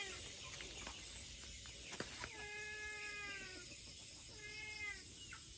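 A cat meowing: two drawn-out meows, the first long and slowly falling, the second shorter, a second or so apart.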